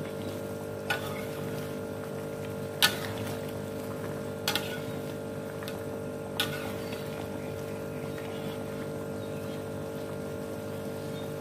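Metal ladle stirring soup in an aluminium wok, knocking the side of the pan in four sharp clinks, over a steady hum.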